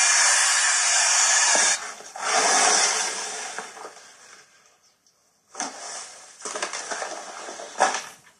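A loud, steady rushing noise that cuts off suddenly about two seconds in. It is followed by a shorter burst that fades out, then scattered short knocks and rustles near the end.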